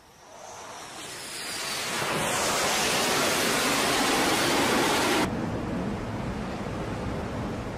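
Loud rushing roar that builds over about two seconds, holds, and cuts off abruptly about five seconds in, giving way to a quieter steady rush of wind and sea.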